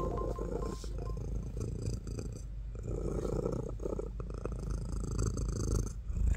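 A domestic cat purring steadily right against the microphone, its fur brushing and scraping over it.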